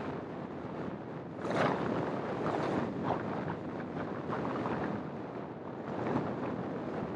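Wind rushing over the microphone of a camera mounted outside a moving car, with road noise beneath. It comes in uneven gusts and swells about a second and a half in.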